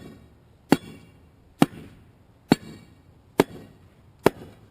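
Steel pry bar jabbed down into a saw cut in a concrete sidewalk slab, striking about once a second, six times, to crack the slab along the cut. Each strike is a sharp clank with a brief metallic ring.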